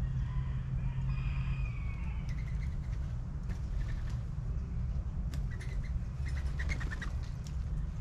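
Small birds chirping in short bursts, with wings flapping and sharp clicks as a bird flies in and lands at a hanging feeder, over a steady low rumble.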